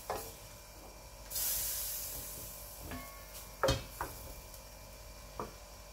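Shrimp and greens sizzling in a hot wok, with a burst of hissing about a second in that fades away over the next two seconds. A wooden spatula knocks against the pan a few times, the loudest knock a little past the middle.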